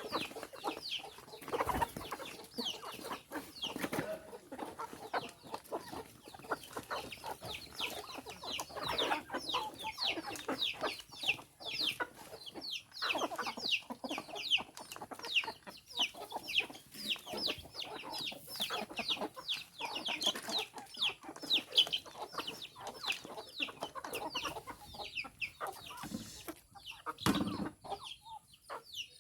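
A flock of chickens clucking and calling without a break, many short falling calls overlapping, with scattered sharp clicks among them.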